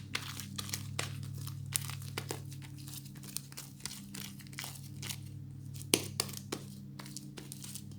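Sticky fluffy slime of glue and shaving foam being kneaded and pulled by hand, giving irregular wet crackles and pops; the slime is still under-activated and sticky. A steady low hum runs underneath.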